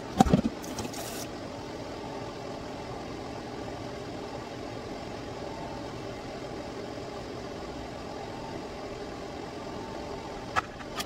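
A sharp knock as a non-stick pan is tapped against a plastic pet bowl to tip food into it, then a steady hum while the food is stirred in the bowl with a spoon.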